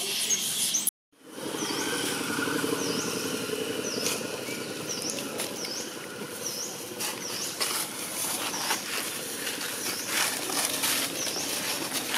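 Outdoor ambience: a short high chirp repeated about twice a second over a low steady hum like distant traffic, with a few light taps and rustles in dry leaves later on.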